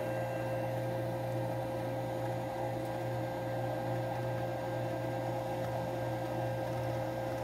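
Gas furnace's small draft motor running steadily: a constant mid-pitched whine over a low hum.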